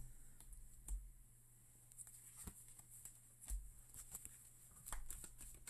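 Near silence: a steady low hum with a few faint, scattered light taps and clicks of small handling noise.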